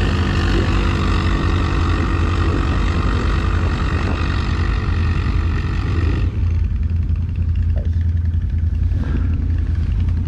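ATV engine running steadily under throttle, with a strong low drone. About six seconds in, the brighter upper part of the engine sound drops away and the note turns duller.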